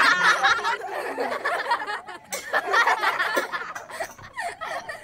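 Children giggling and snickering, a run of short voiced laughs.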